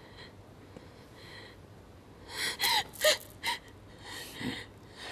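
A woman's sharp gasps and breaths, several in quick succession about two and a half seconds in, with a short low voice sound near the end.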